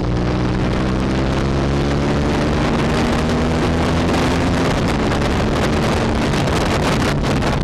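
Hyosung GT250 Comet's 250 cc V-twin engine running under way, heard from the rider's helmet, its pitch rising slowly over the first four seconds or so. The engine then sinks under heavy wind rush and buffeting on the microphone.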